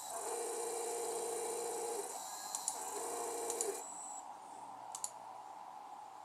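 Printer stepper motor driven by a CNC controller, buzzing with a steady pitched whine in two runs, about two seconds and then about one second, with a few light clicks between and after. From about four seconds in only a fainter hum remains.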